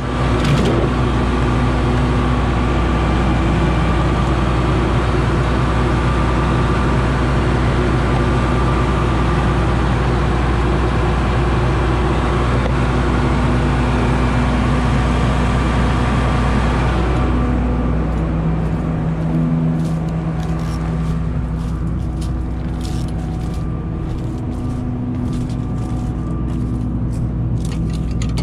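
Claas Lexion 670 combine harvester's engine running steadily. About 17 seconds in the hiss over the engine drops away, and a run of sharp clicks and knocks follows.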